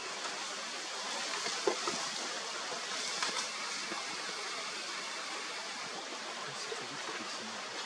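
Steady outdoor hiss of wind, with a few faint short snaps and crackles about two and three seconds in.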